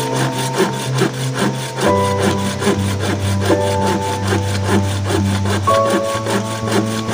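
Hand saw cutting across an old, weathered wooden beam, in rapid, even back-and-forth strokes.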